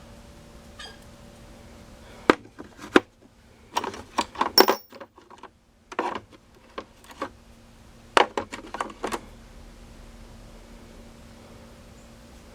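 Steel sockets and hand tools clinking and clattering against one another as they are sorted for the right size. There are scattered sharp clicks and short bursts of rattling over a faint steady hum.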